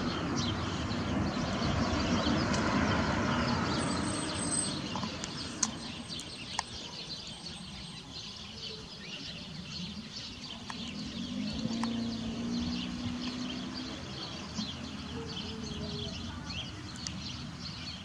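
Outdoor ambience: small birds chirping over a steady low rumble that swells in the first few seconds and eases off, with a brief low hum around the middle.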